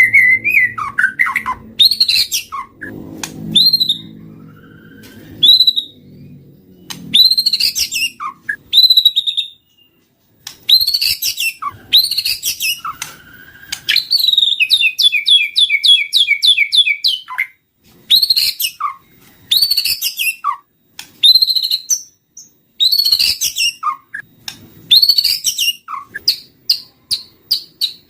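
White-rumped shama (murai batu) singing, used as a lure call: a run of loud, varied phrases of whistles, downward-sweeping notes and fast rattling trills, split by short pauses.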